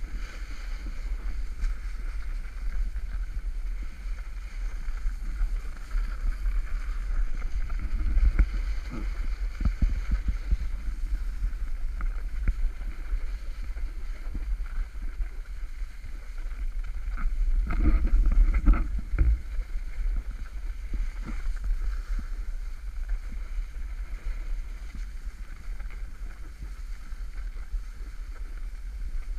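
Wind buffeting the microphone of an action camera moving down a ski slope, over the steady scrape and hiss of edges sliding on groomed, packed snow. A louder stretch of scraping with a few knocks comes about two-thirds of the way through.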